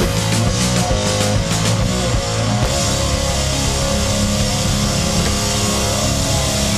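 Loud rock music with distorted electric guitar and drums, a heavy-metal soundtrack.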